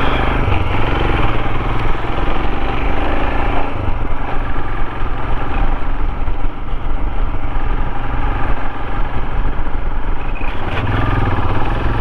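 Motorcycle engine running steadily while riding along a dirt track, under a continuous rush of wind and tyre noise.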